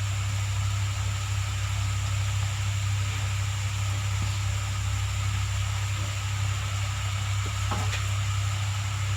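Steady low hum with an even hiss over it, and a faint click or two partway through.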